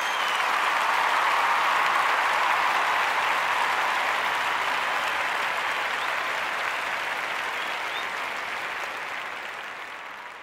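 Crowd applause with a couple of short whistles, swelling up at the start and slowly fading away. It is a dubbed-in sound effect, since only two people are in the kitchen.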